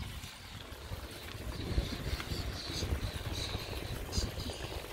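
Wind buffeting the microphone and road rumble while riding a bicycle, with a few short high chirps now and then.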